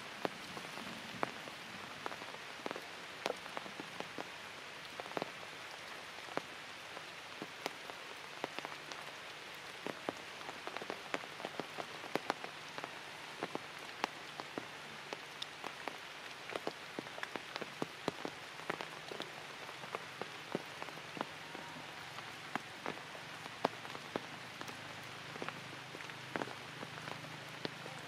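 Light rain falling: a steady hiss with frequent sharp, irregular taps of individual drops.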